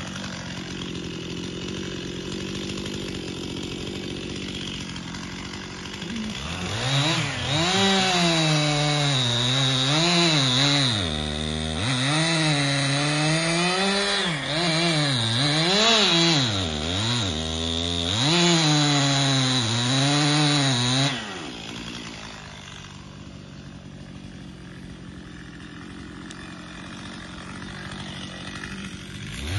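Two-stroke chainsaw running at low speed, then cutting into cherry wood for about fifteen seconds, its engine pitch rising and dipping again and again as the chain bites under load. It then drops back to low speed and revs up again right at the end.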